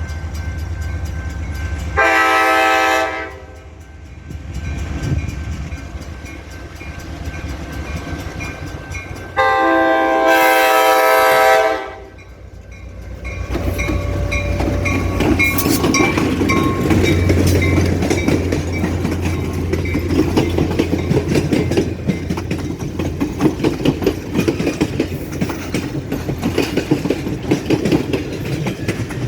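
Diesel locomotive air horn sounding two long blasts. The train then passes close by, its engine rumbling and wheels clicking and rattling over the rail joints.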